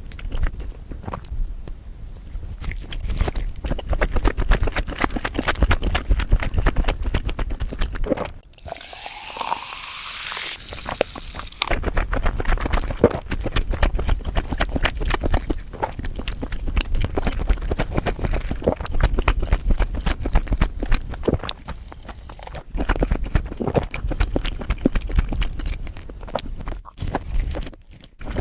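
Close-miked eating: dense crunching and chewing of food, with a short hiss that rises in pitch about nine seconds in.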